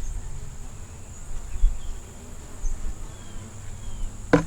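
Honeybees buzzing around an open nuc hive, over a low rumble, with one sharp knock about four seconds in.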